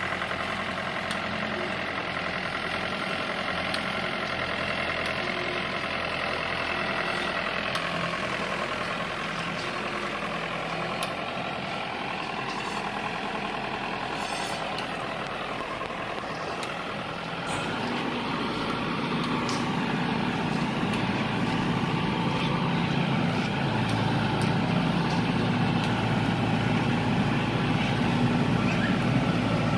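Combine harvester engine running steadily, then louder and deeper from a little past halfway as it comes under more load or revs.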